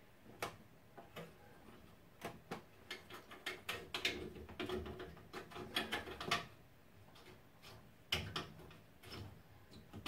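Scattered light clicks and taps of metal pipe fittings and tools being handled while new seals are fitted to a combi boiler's pipe connections.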